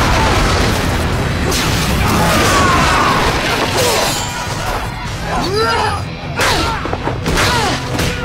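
Battle sound effects over dramatic music: a fireball explosion roars through the first few seconds. After that come blows and sword strikes with fighters' shouts.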